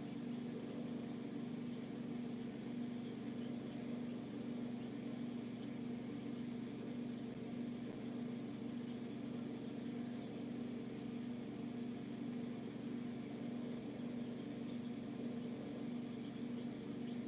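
Steady machine hum, a low even drone that does not change.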